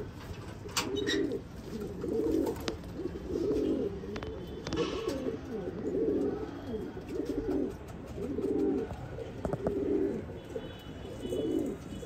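Domestic pigeons cooing, one low coo after another roughly once a second.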